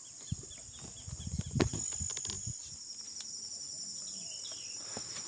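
Insects trilling steadily at a high pitch, with footsteps and rustling through undergrowth and a sharp click about a second and a half in. A few faint bird chirps come near the end.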